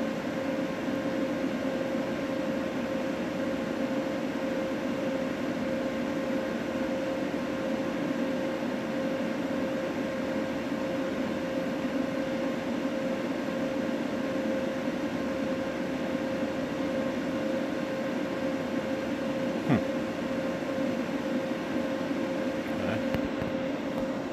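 Steady machine hum with a constant mid-pitched tone running under it, and a single short click about twenty seconds in.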